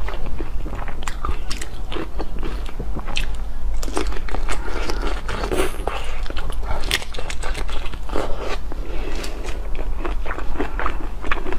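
Close-up eating sounds of a whole shrimp dipped in sauce being bitten into and chewed, with dense, irregular wet clicks and crunches of the shell, picked up by a clip-on microphone at the chest.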